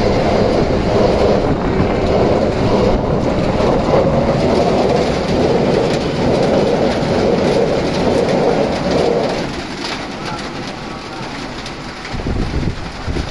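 Passenger train passing close by at speed in heavy rain: a loud continuous rumble of the carriages over the rails, mixed with the hiss of the rain. About nine to ten seconds in the rumble eases off, leaving mostly rain, then rises again near the end.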